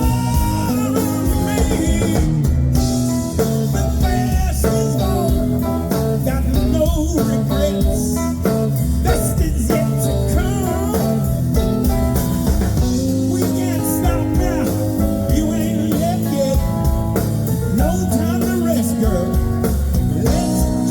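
A live blues band playing an instrumental break: steady bass and drums under a lead line of bending notes.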